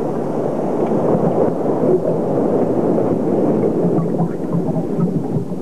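A steady, loud low rumble of noise without a clear beat or pitch.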